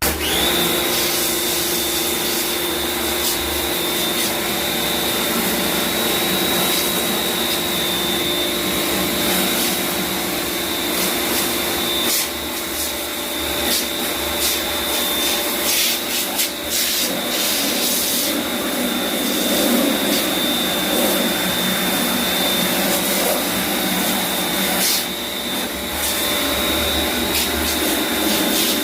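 An electric cleaning machine's motor switching on and running steadily, with a high whine over a rushing noise. A few brief knocks sound through it.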